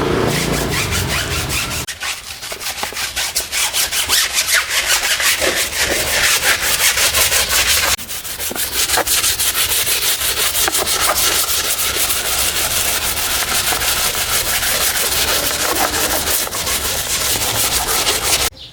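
A stiff brush scrubbing a dirty surface back and forth in rapid, even strokes, about five a second, with a brief pause about eight seconds in. The scrubbing stops just before the end.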